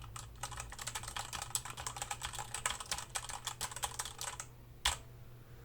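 Rapid keystrokes on a Redragon Kumara mechanical keyboard with Outemu Red linear switches, many presses in quick succession. The typing stops about four and a half seconds in, followed by one last keystroke.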